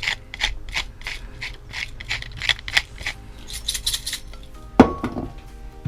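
Black pepper being ground in a hand pepper mill: a gritty, rasping crunch repeated about three times a second with each twist. Near the end comes one sharp knock.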